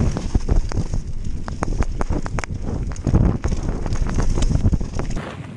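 Mountain bike descending a rough, wet dirt trail at speed: heavy wind noise on the microphone, with a rapid, uneven rattle of clicks and knocks as the bike jolts over the ground. The low rumble drops away about five seconds in.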